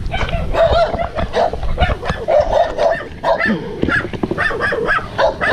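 Small dog whining and yipping over and over in short, pitched calls.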